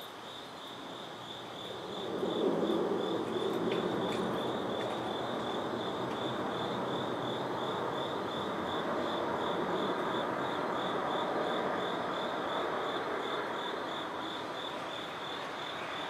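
Crickets chirping steadily on one high pitch, about three chirps a second. Under them a broad wash of distant noise swells about two seconds in and stays louder than the chirping.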